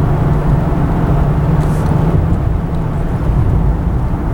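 A car driving along a road: steady engine hum and tyre rumble heard from inside the moving car.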